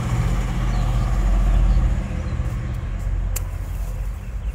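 Steady low rumble and hum that eases a little about two seconds in, with one sharp click a little past three seconds.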